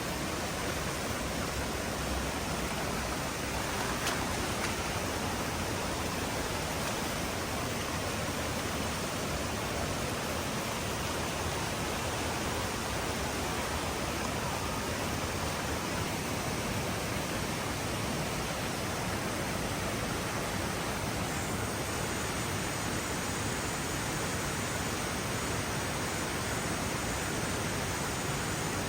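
Waterfall water rushing over rock, a steady, even roar of falling water that holds unchanged.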